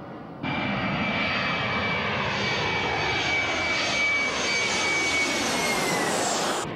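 Boeing 737 jet airliner flying low overhead: a loud jet rush with a steady high engine whine that drops a little in pitch as the plane passes. It starts suddenly about half a second in and stops suddenly near the end.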